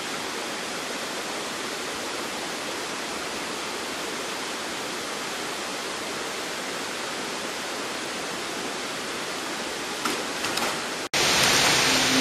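Steady rushing of water pouring over a low dam spillway, an even hiss. About eleven seconds in it cuts off abruptly and electronic music starts.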